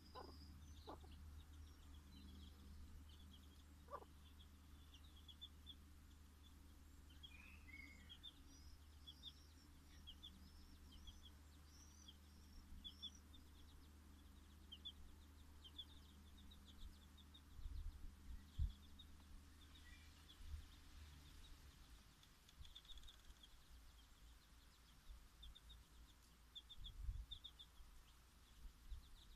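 Bantam chicks peeping, faint, short and repeated at about two or three peeps a second, with a few low clucks from the Dutch bantam hen in the first seconds. A couple of soft low thumps come about two-thirds of the way through and again near the end.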